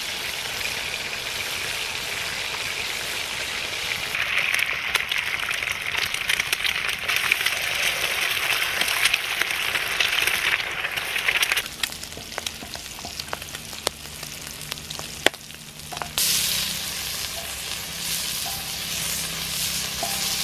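Bacon, black pudding, eggs and mushrooms sizzling and frying on a hot steel griddle over a campfire. The sizzle softens for a few seconds past the middle, with a few sharp clicks, then comes back loud.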